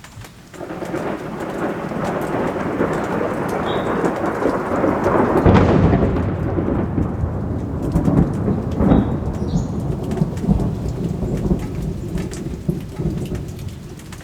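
Thunder rolling over steady rain: a long rumble builds about half a second in, surges twice to louder peaks in the middle, then slowly dies away.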